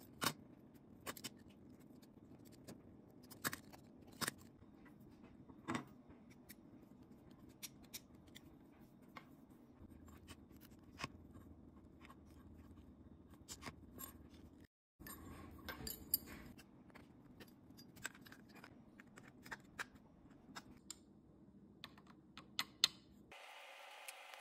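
Faint, scattered clicks, taps and scrapes of a welder plug being wired by hand: wire cutters on copper wire, small brass terminals and screws, and the plastic plug housing being handled.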